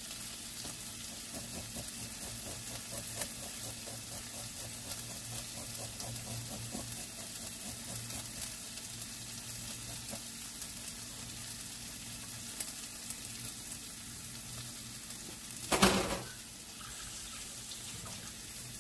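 Onion and tomato wedges sizzling steadily in a little oil in a nonstick sauté pan. About 16 seconds in there is a single loud knock.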